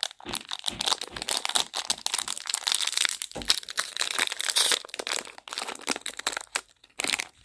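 Plastic fruit snack pouch being crinkled and torn open by hand, a dense run of irregular crackling rustles with short pauses near the end.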